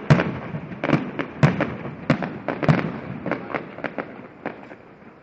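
Aerial fireworks bursting in a rapid, irregular string of sharp bangs. The loudest come in the first three seconds, and the bangs thin out and fade near the end.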